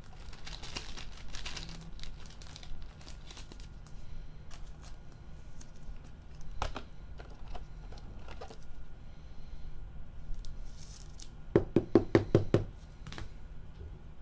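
Trading cards and their plastic cases rustling and clicking as gloved hands handle them. Near the end comes a quick run of about seven loud knocks within about a second.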